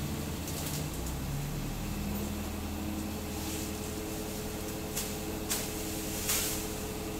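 Bucket truck's engine running steadily to power the boom, its pitch stepping up about a second and a half in. Three sharp snaps come near the end, from branches being cut.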